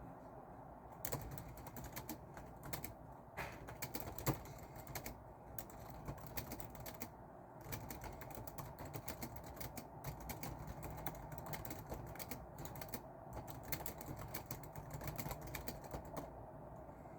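Typing on a computer keyboard: quick runs of keystroke clicks with a few brief pauses. It starts about a second in and stops shortly before the end, over a steady low hum.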